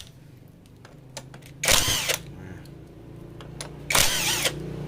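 A power tool spinning in two short bursts, about two seconds apart, while undoing bolts on a Honda Supra Fit engine during teardown.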